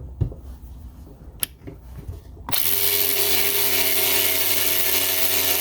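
A cordless electric ratchet starts up about two and a half seconds in after a few light clicks, then runs steadily at an even pitch while driving a lag screw.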